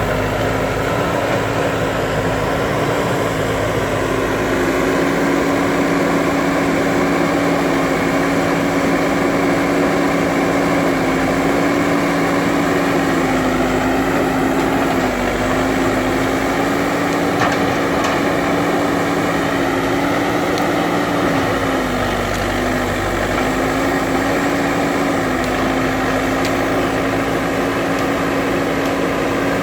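JCB 3DX backhoe loader's diesel engine running at a steady speed, its pitch rising and falling slightly now and then.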